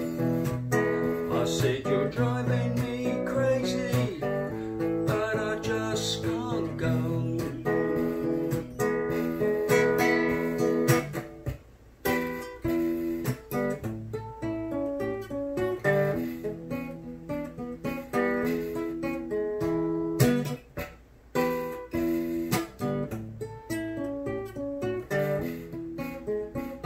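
Nylon-string cutaway acoustic guitar played fingerstyle: an instrumental passage of plucked chords and single notes, with two brief pauses, about halfway through and again about three-quarters of the way.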